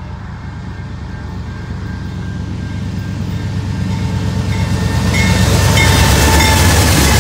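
Lead diesel locomotives of a heavy freight train approaching and passing, their engines rumbling and growing steadily louder as they come alongside, with a few short high-pitched tones near the end.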